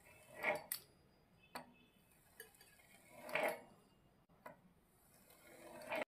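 Metal wheel cutter rolling through a sheet of rolled biscuit dough and scraping on the stone counter beneath: two short, quiet scraping strokes, about half a second in and again about three and a half seconds in, with a few faint ticks between.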